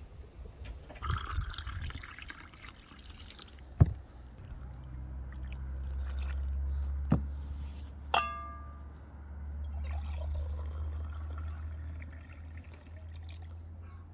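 Water poured from a glass pitcher, with a few sharp knocks and a ringing clink of glass or ceramic about eight seconds in, over a low rumble.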